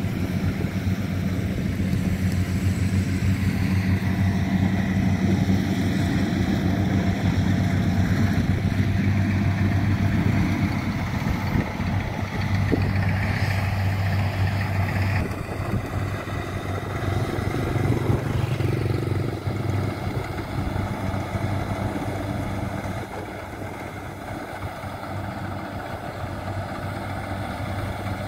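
Engines running steadily: a motorbike at first, then, after an abrupt change about halfway through, a farm tractor and Kubota combine harvesters working a rice field. It gets somewhat quieter near the end.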